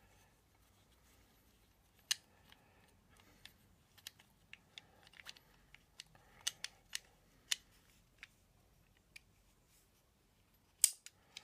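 Scattered light metallic clicks and taps as a small Axminster Rider No. 102 apron plane is handled and taken apart, its steel cap and brass lever cap knocking against the cast body. One sharper click comes near the end.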